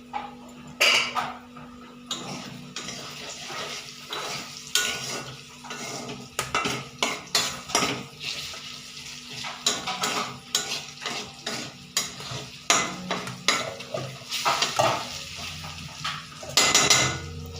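Metal kitchen utensils clinking and knocking irregularly, a spoon working against pots and bowls, with a few louder clanks.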